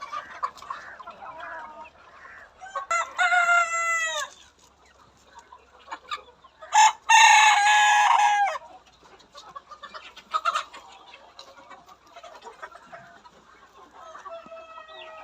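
A flock of Golden Misri chickens: hens clucking throughout, and roosters crowing loudly twice, about three and seven seconds in, each crow ending on a falling note, with a fainter crow near the end.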